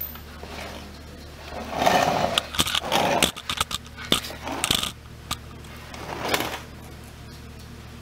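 Steel lift cable being pulled and worked through the metal frame of a four-post car lift: scraping and rattling about two seconds in, with several sharp metallic clicks, then a shorter scrape near the end.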